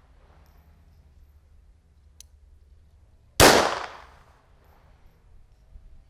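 A single pistol shot from an FN Model 1910/22 firing 7.65 mm (.32 ACP): one sharp crack about three and a half seconds in that dies away over about a second.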